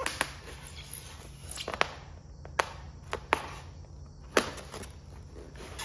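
A putty knife cutting packing tape and a white foam shipping case for a CNC spindle being pried apart. The handling gives about half a dozen sharp clicks and snaps with rustling scrapes between them.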